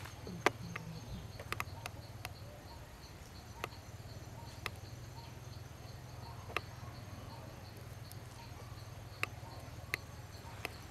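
Quiet forest ambience: faint insects chirping in a steady pulsing pattern over a low steady hum, with about ten sharp clicks scattered through, the loudest about half a second in.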